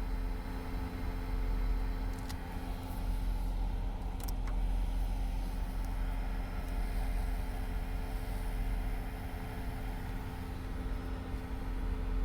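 Cadillac running, a steady low rumble with a steady hum over it and a few faint ticks about two and four seconds in.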